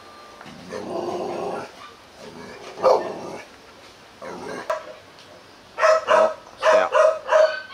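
H'Mong bobtail dog growling as a guard warning: drawn-out growls in bouts, then a quick run of about five short barks near the end.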